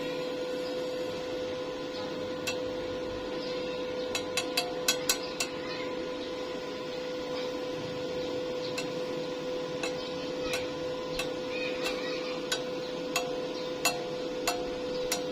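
A steady electrical hum with light, sharp metallic taps on top: a quick cluster about four to five seconds in, then single evenly spaced taps near the end.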